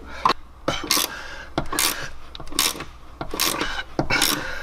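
A wrench turning the bolt of a rivet nut (nut-sert) tool, with six short rasping strokes about one every 0.8 s, as the rivet nut is drawn tight and crimped into the car's sheet-metal panel.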